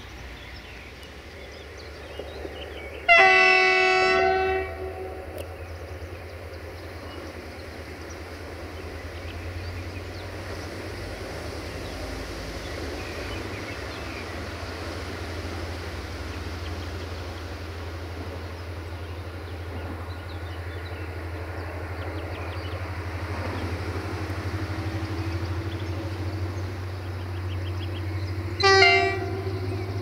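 Diesel locomotive horn: a loud multi-tone blast about three seconds in, lasting about a second and a half, and a second short blast near the end. Between them the locomotive's diesel engine runs with a steady low rumble that grows louder in the last few seconds as it throttles up, putting out exhaust smoke.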